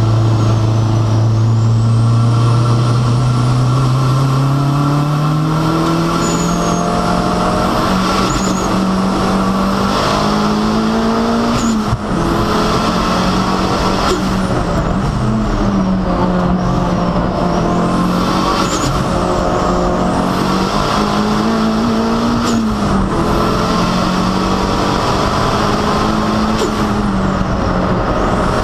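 Toyota MR2 SW20's turbocharged inline-four heard from inside the cabin, pulling hard on track. Its note climbs steadily over the first several seconds, then stays high, rising and falling with each gear change and lift, with a short drop near the middle. A thin high whine sweeps up and down above the engine note.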